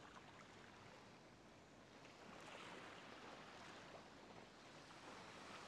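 Faint ocean surf washing on a shore, swelling a little about two seconds in.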